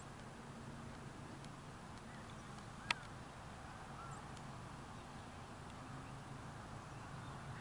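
Faint steady outdoor background noise, with one sharp click about three seconds in and a couple of short faint chirps.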